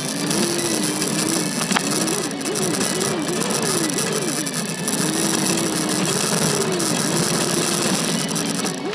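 Subaru Forester's flat-four engine, its pitch rising and falling over and over as the throttle is worked on a rough dirt trail. A loud steady hiss of wind and vibration on the roof-mounted camera lies under it.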